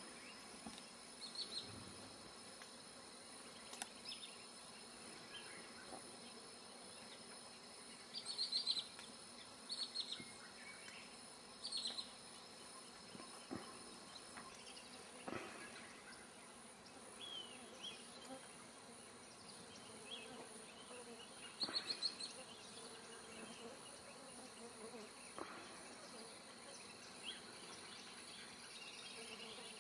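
Faint rainforest-clearing ambience: a steady high insect whine, with several short clusters of high chirping calls.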